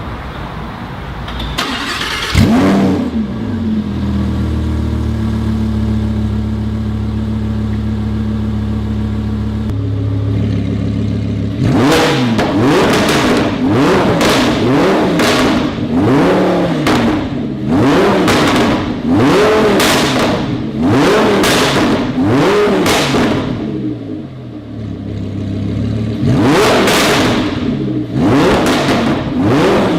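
Lamborghini Huracán LP610-4's V10 engine revved through its exhaust with the car standing still. One rev is followed by several seconds of steady idling, then a quick series of blips about one every second and a bit. It settles briefly to idle and then revs repeatedly again near the end.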